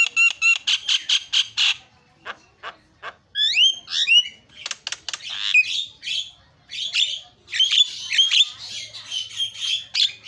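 Javan myna singing a varied song. It opens with a quick run of short repeated notes and has a short pause about two seconds in. Then come a few rising whistles and a long stretch of harsh, chattering squawks.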